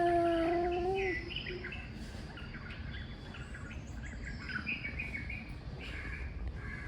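An angry tomcat's long, drawn-out yowl, a threat call before a fight, ends about a second in. After it, birds chirp over a low background rumble.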